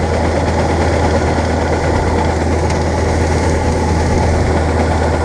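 Bizon Z040 combine harvester's engine and machinery running steadily, a loud, even, low drone heard from the open, cabless driver's platform.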